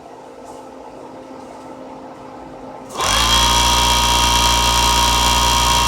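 Electric motor on a 12-volt, 130-amp source switched on about halfway through, spinning up quickly to a loud, steady whine; a faint hum before it starts.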